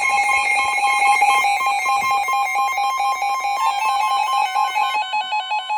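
Emergency alert attention tone: two high pitches alternating in a rapid warble, loud and steady throughout.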